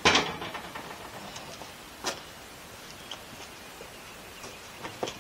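A sharp knock, then rattling and clicks as a replacement RV door window is handled and held up to the door's window opening, with another click about two seconds in and a few light ones near the end.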